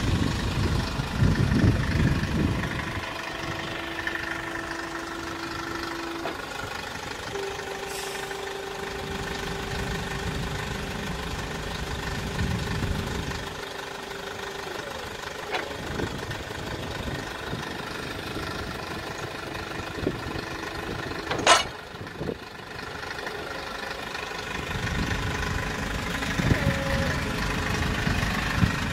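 Kia Bongo III wrecker truck idling while its hydraulic wheel-lift is worked, with a steady hum from the hydraulics that shifts up in pitch about seven seconds in and stops about halfway through. One sharp metallic clank comes about two-thirds of the way through.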